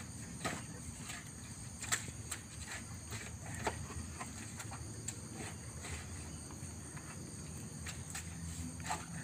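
Irregular knocks and scrapes from work at the front wheel of a truck bogged in mud, a few every second or two, over a steady high insect drone and a low hum.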